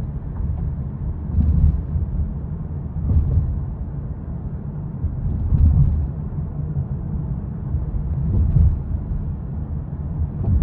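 Low road and tyre rumble inside the cabin of a moving car at city speed, swelling and easing every few seconds.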